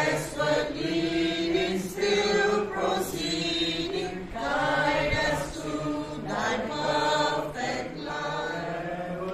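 A small mixed group of men and women singing a Christmas carol together, in sung phrases with short breaths between them.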